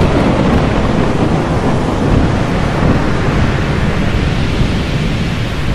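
Stormy-sea sound effect: thunder and crashing ocean waves, a loud, steady rumbling noise.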